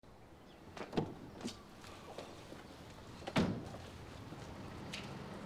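A few knocks and thuds from a car's doors and boot being handled, over a faint steady outdoor hum; the loudest thud comes about three and a half seconds in.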